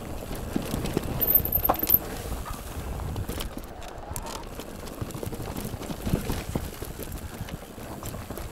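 Mountain bike being ridden along a trail: tyres rolling over the ground with an uneven rumble and scattered knocks and rattles from the bike. A brief high squeak comes about a second in, and the loudest jolt is about two seconds in.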